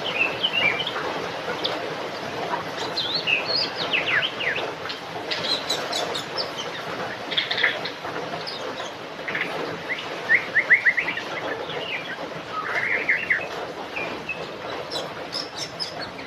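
A songbird singing a varied run of whistled phrases, quick trills and sweeping notes, over a steady background hiss.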